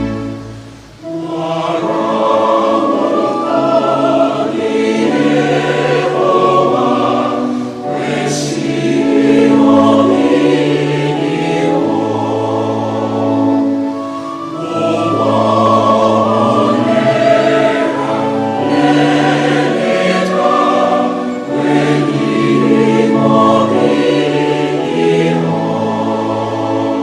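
A choir singing slow gospel music in harmony, with long held chords; the singing comes in about a second in.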